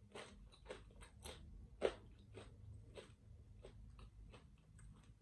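Close-up crunchy chewing of a tortilla chip, with short crackles about two to three times a second and the loudest crunch a little under two seconds in.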